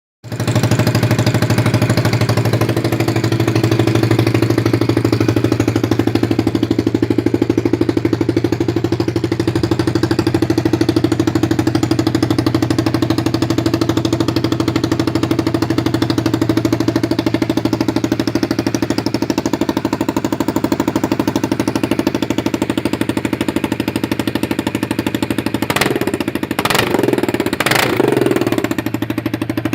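Single-cylinder four-stroke engine of a restored 2008 Honda XR 250 Tornado motorcycle idling steadily, with a rapid even beat. Three brief sharp knocks or clicks sound near the end.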